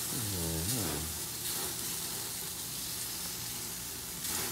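Salmon fillets sizzling on the grates of a gas grill, a steady hiss that flares briefly near the end as a fillet is lifted and turned with tongs.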